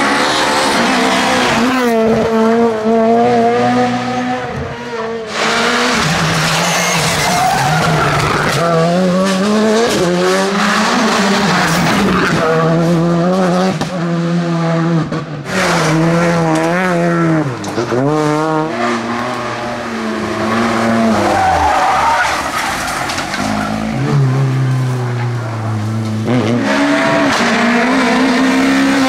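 Several rally cars in turn, engines revved hard: the pitch climbs and drops again and again through gear changes and braking for corners.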